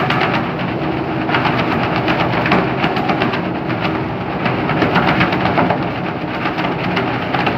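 Waste plastic dust remover (fatka) machine running loudly, with a dense, rapid rattling of plastic film being thrown about inside its drum as waste plastic is fed in.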